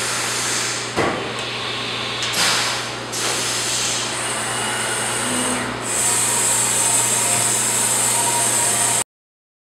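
Haas VF-6/40 CNC vertical machining center running with its axes moving, traversing the table and raising and lowering the spindle head: a steady motor hum and hiss, a sharp knock about a second in, the hiss growing brighter about six seconds in, then the sound stops abruptly near the end.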